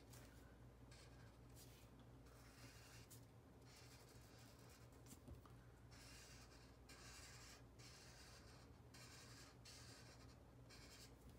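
Faint scratching of a yellow felt-tip marker on paper: quick back-and-forth strokes coloring in a shape, coming in short runs with brief pauses between them.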